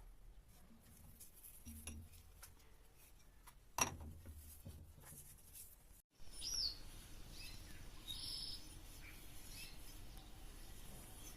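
A few light clicks and a sharp tap, then, after a cut, outdoor background noise with a few short bird chirps.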